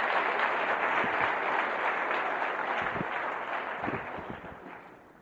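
Audience applause, a dense patter of many hands clapping that fades away over the last couple of seconds.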